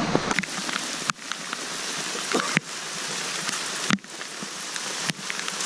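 Steady rain falling on vegetation, an even hiss with scattered sharp taps.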